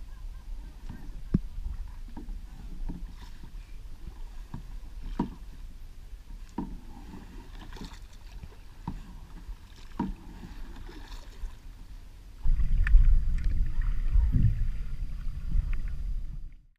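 Kayak being paddled with a double-bladed paddle: regular splashes and light knocks on each stroke over a low hiss. About twelve seconds in this gives way to a louder, muffled underwater rumble, which cuts off suddenly near the end.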